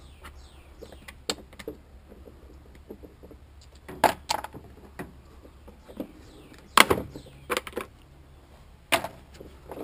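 Light clicks and clatter of a Bissell Powerforce Compact vacuum's plastic housing and small screws being handled during hand disassembly, with a few sharper knocks about four, seven and nine seconds in.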